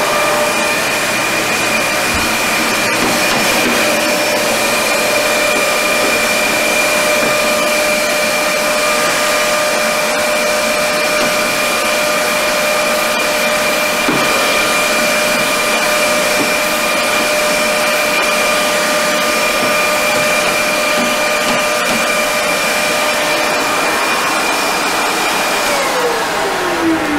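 Dyson DC65 vacuum cleaner running steadily with a high motor whine over a rushing hiss. Near the end it winds down, the whine falling in pitch.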